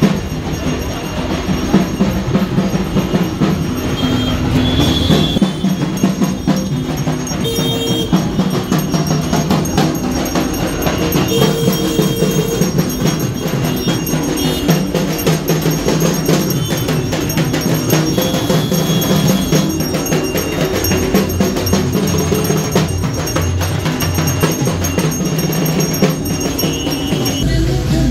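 Music with fast, dense percussion and short bell-like ringing, running steadily throughout.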